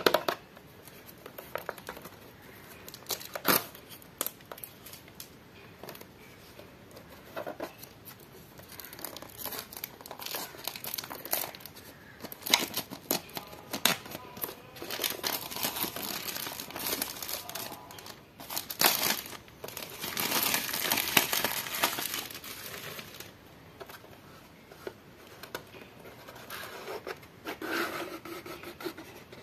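Clear plastic shrink-wrap on a cardboard box being picked at with fingernails and torn off, crinkling and crackling in scattered bursts, with a dense stretch of crinkling about halfway through.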